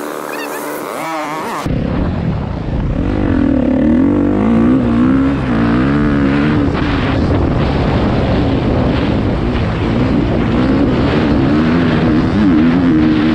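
Dirt bike engine revving hard, its pitch rising and falling repeatedly as the bike accelerates and shifts along a motocross track, heard up close from the bike itself. The sound gets abruptly louder about two seconds in.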